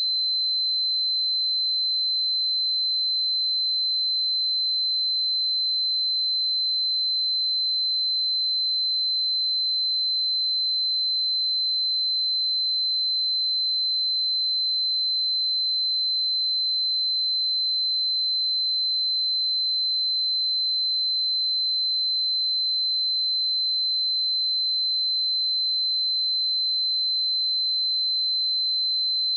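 A steady, pure 4072 Hz sine-wave test tone, held at one pitch and level without a break.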